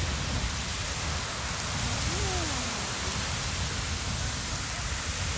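Beehive Geyser erupting: a steady hissing rush of its water and steam column.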